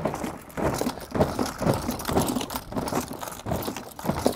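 Loaded Milwaukee Packout rolling tool box stack bumped down wooden stairs: its wheels knock from step to step and the plastic boxes rattle, a quick run of irregular knocks.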